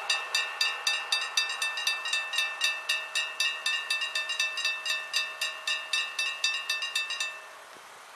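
Dutch railway level-crossing warning bell ringing rapidly, about four strikes a second, while the barriers lift after the train has passed. It stops about seven seconds in.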